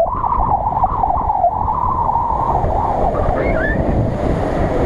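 Off-road SUV driving through a flooded track past the microphone: its engine note gives way to a rushing wash of water spray around the wheels as it ploughs by, with wind on the microphone.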